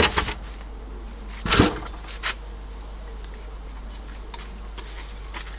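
Building work while penoplex foam insulation boards are fitted: a few short knocks, a louder scrape about one and a half seconds in, and faint ticks later, over a steady low hum.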